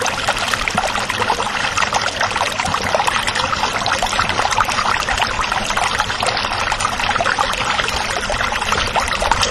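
Steady pouring noise, dense with small clicks, starting abruptly.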